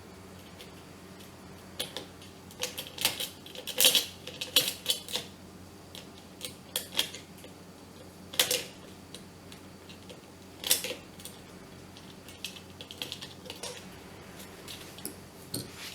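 Irregular metal clicks and clinks of hand tools and small hardware on the kettle's parts while a nut is fitted and tightened, the loudest around the middle with a brief ringing after some strikes.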